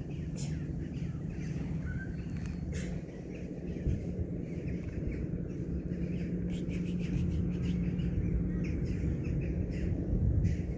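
Small birds chirping in short, scattered calls, busiest about two-thirds of the way through, over a steady low background rumble.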